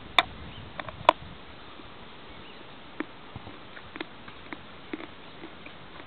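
A lump of natural chalk being bitten and chewed: two sharp cracks, about a quarter second and a second in, then scattered lighter crunches about once a second.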